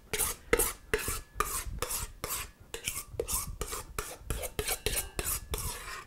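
A spoon scraping cream out of a stainless steel mixing bowl in quick repeated strokes, about three or four a second.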